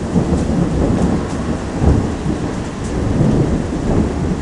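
Rolling thunder rumbling low, swelling several times, over the steady sound of rain.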